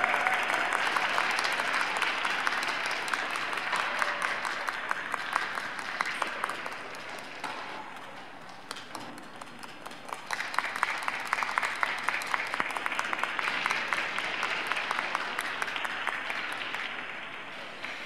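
Audience applauding after the music ends. The clapping thins out about halfway, swells again suddenly, then fades near the end.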